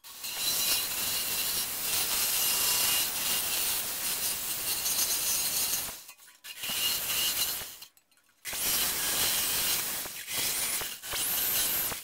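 Handheld corded power tool cutting into aluminium sheet with a rasping, grinding noise. It stops briefly several times in the second half.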